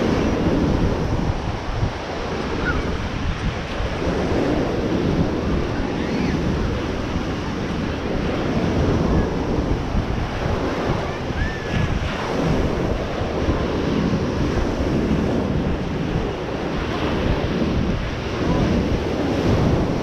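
Ocean surf washing onto the beach, with wind buffeting the microphone in uneven low gusts.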